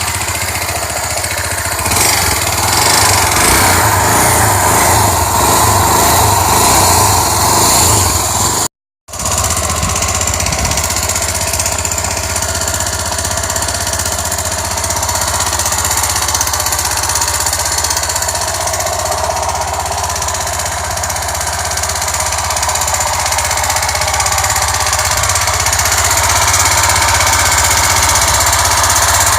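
Chevrolet Tornado pickup's engine running steadily with a strange fast, even rattling knock. The sound cuts out for a moment about nine seconds in.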